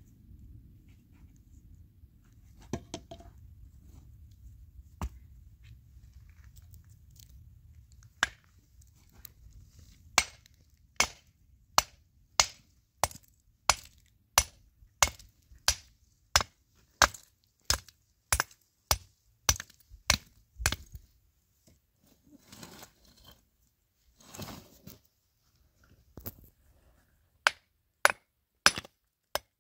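A hammer striking a lump of white stone, breaking it into pieces: sharp blows about two a second. At first there is only a low rumble and a couple of knocks. The steady blows begin about a third of the way in, pause for a few seconds past the middle, and resume near the end.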